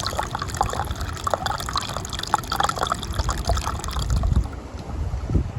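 Wind rumbling against the microphone, with scattered light crackles and clicks over it.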